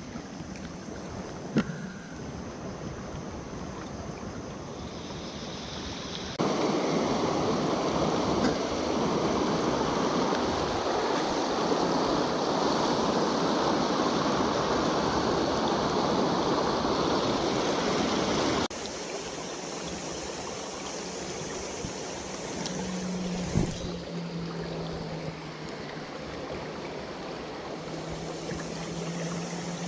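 Stream water rushing steadily, much louder in a stretch from about six to nineteen seconds in, with a sharp click near the start, a knock about two thirds through, and a low steady hum near the end.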